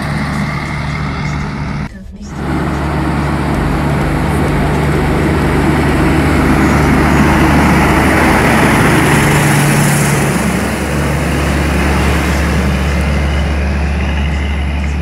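Heavy diesel tractor-trailers driving past on the road: a Kenworth semi hauling a bulk tanker trailer goes by close, its engine, tyres and rushing air loudest about halfway through, then fading as it pulls away. A brief gap in the sound about two seconds in.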